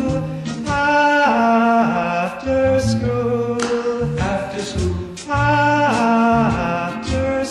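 1957 pop record playing: a male singer with backing vocals over a band, with a steady beat.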